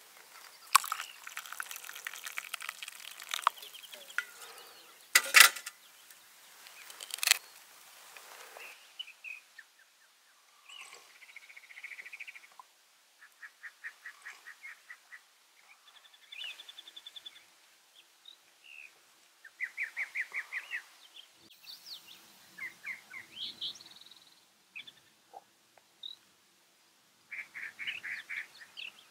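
Boiling water poured from a metal pot into a cup, with a few sharp metal clinks, for about the first eight seconds. Then songbirds sing repeated rapid trills and chirps.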